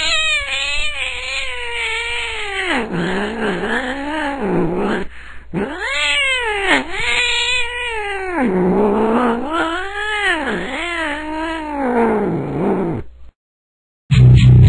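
A cat yowling (caterwauling) as the song's vocal, in long drawn-out wails that swoop up and down in pitch. Near the end the wailing stops for a moment and the band's electric guitar and bass come back in.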